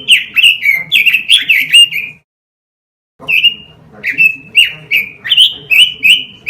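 Pekin robin (red-billed leiothrix) singing two phrases of quick, whistled notes that slur downward, about three notes a second, with a pause of about a second between the phrases.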